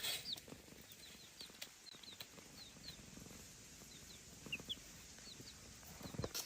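Chicks peeping softly, short high chirps scattered a couple of times a second, with a soft knock at the start and another near the end.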